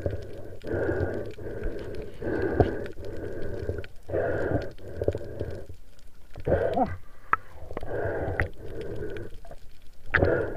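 A snorkeler breathing through a snorkel tube: rasping breaths in and out in pairs, about every two seconds, with a faint whistle from the tube, picked up by an underwater camera. A few short squeaky glides come about six seconds in and again near the end.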